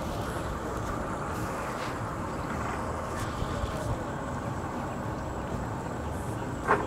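Steady low rumble of boat engines idling at a boat ramp, with a short sharp sound near the end.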